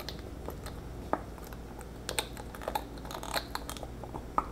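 Scattered small clicks and taps of a metal spray-pump top being fitted and pressed down onto a glass perfume atomizer bottle.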